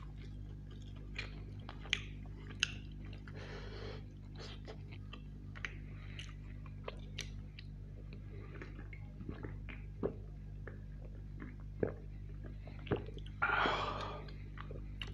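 Close-miked chewing and wet mouth sounds of a man eating roast chicken, with scattered small clicks and smacks over a steady low hum. Around the middle he drinks soda from a can, and near the end there is a loud breathy sound from the mouth, lasting under a second.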